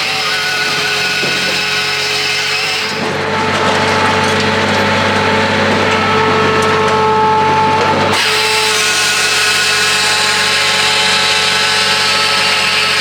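A powered saw cutting wood, running steadily, with the sound shifting abruptly about three seconds and eight seconds in.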